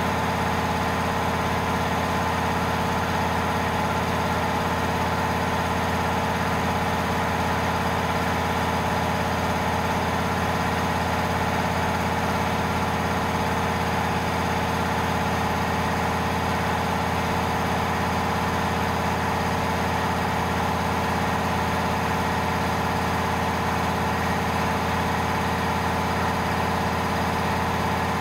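WALTER GK 880-5.5/500 P electric piston air compressor running steadily under load as it pumps up its 500-litre tank.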